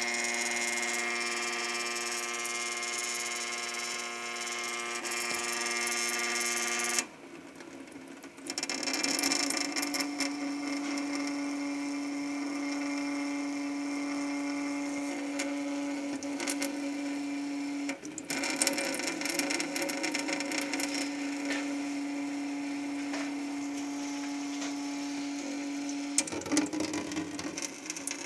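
Water running from a kitchen sink tap with a strange, steady buzzing hum: a droning tone with many overtones. It cuts off suddenly about seven seconds in, then comes back slightly higher with more hiss and drops out briefly twice more. The uploader takes the hum for resonance or a viscoelastic effect of the constant water stream.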